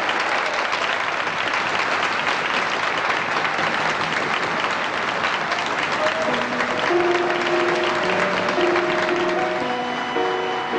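Audience applause after a sung chanson, dense and steady. About six seconds in, instrumental music starts up under the clapping.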